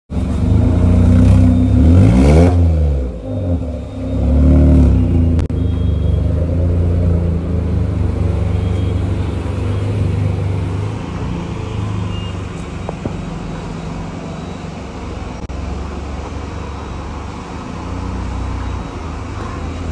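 Volkswagen Polo GT with a custom aftermarket exhaust, revved once about two seconds in, its pitch climbing and falling back. A shorter blip comes around four to five seconds, then the engine settles into a steady, loud idle.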